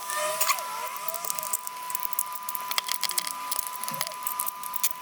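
Irregular small plastic clicks and snaps of a TV remote control's casing being unclipped and clicked back together by hand. A steady high tone sounds underneath.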